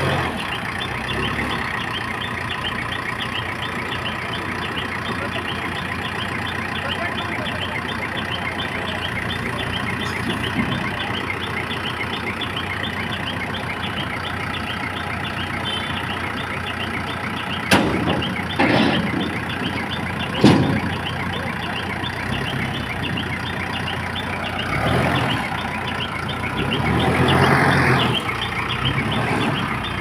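Diesel engine of an ACE backhoe loader running steadily at idle, with a fast, even ticking over it. Two sharp knocks come a few seconds apart just past the middle, and the sound swells briefly near the end.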